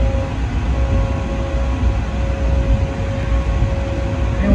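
Schoma maintenance locomotive running as it moves slowly along the track: a steady low rumble with a steady whine above it.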